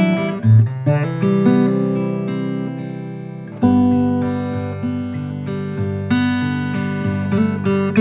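Sitka spruce and mahogany 00-size acoustic guitar by GWG Guitars, played solo. Bass and melody notes are plucked over ringing chords that die away slowly, and a strong new chord comes in about three and a half seconds in.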